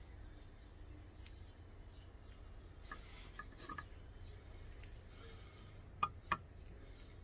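Potassium permanganate and antifreeze mixture fizzing faintly with scattered small crackles and ticks as the reaction heats up before it ignites, over a steady low rumble. Two sharper clicks come close together about six seconds in.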